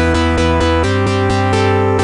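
Background music: electronic track with a steady bass and repeating pitched notes.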